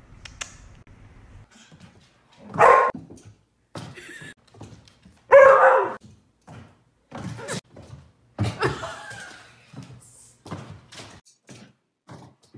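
A dog barking in a string of short, pitched calls, the two loudest in the first half.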